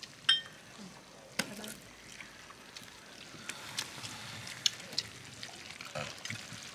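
Tableware at a meal: a sharp ringing clink just after the start, another knock about a second later, then a light trickling pour of liquid with small scattered clinks.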